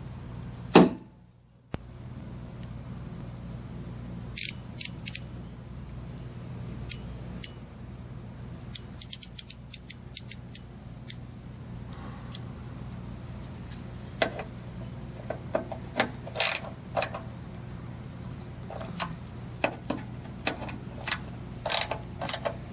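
One loud knock about a second in, then a ratchet driving a T30 Torx bit clicks in short runs as the screws of a Jeep Wrangler JK tailgate are worked.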